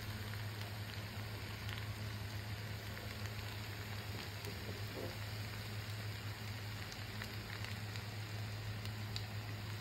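Creamy white sauce pasta in a pan sizzling faintly on the stove: a steady, soft crackling hiss, with a low hum beneath it.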